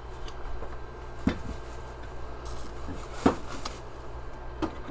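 A cardboard tumbler box being handled as a tumbler is worked out of it: three short knocks, the loudest a little past the middle, and a brief sliding scrape of cardboard.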